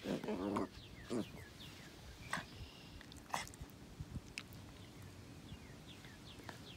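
Puppies' short play growls and yelps in the first second or so, as a mastiff puppy and a wirehaired pointer puppy wrestle, then faint high chirps and a few sharp clicks.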